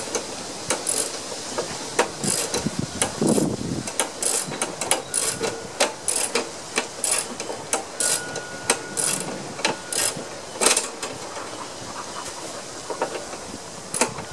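Ratchet wrench clicking in short, irregular runs as a nut is tightened onto a lawn mower's handle linkage, with the odd clink of metal on metal.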